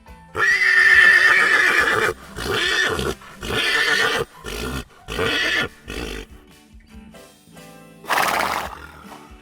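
Horse whinnying: one long call with a wavering pitch starting about half a second in, then several shorter calls and a short noisy burst near the end, over faint background music.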